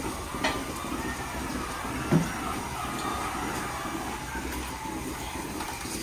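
Milking parlour machinery running with a steady mechanical hum and rattle. There is a sharp click about half a second in and a brief low thump about two seconds in, the loudest moment.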